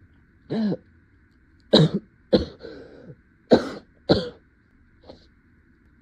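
A woman with a cold coughing and clearing her throat: a short voiced catch about half a second in, then a run of five sharp coughs between about two and four seconds in, and a small one near the end.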